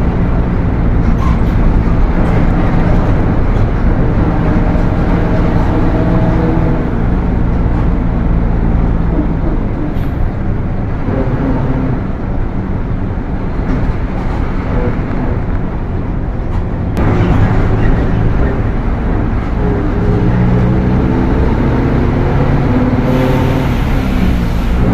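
Mercedes-Benz OF 1721 bus's four-cylinder turbodiesel running under way, with the transmission running loud. The engine note eases off about ten seconds in, comes back sharply about seventeen seconds in, then climbs in pitch.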